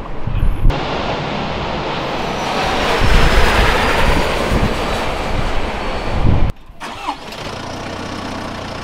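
Loud vehicle noise that swells over a few seconds, with a faint, slowly falling whine. It cuts off suddenly and gives way to a quieter, steady low hum.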